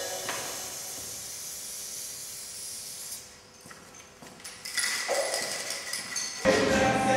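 Aerosol spray-paint can hissing in sprays, with a pause of about a second and a half near the middle. Loud music cuts in just before the end.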